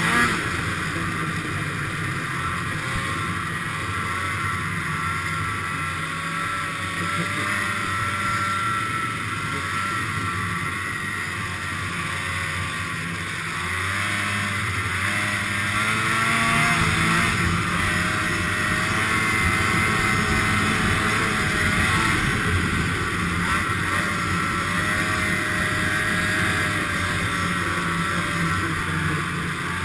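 Polaris snowmobile engine running under way, heard from on board the sled, its pitch wavering as the throttle changes. It gets louder about halfway through.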